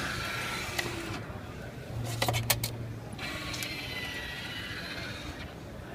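Best Buy Express vending machine's robotic retrieval mechanism fetching a purchased item: motor whine, a quick run of clicks and clunks about two seconds in, then the motors whine again over a low hum.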